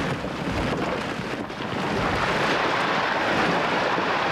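Heavy storm wind blowing across the microphone aboard a sailing schooner, over the steady rush of rough sea. It eases briefly about a third of the way in, then picks up again.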